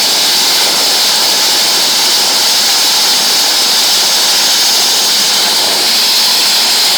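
Helicopter turbine engine running: a steady, loud rushing noise that does not change.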